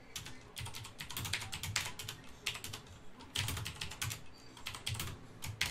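Typing on a computer keyboard: quick, irregular keystroke clicks in short runs with brief pauses between them.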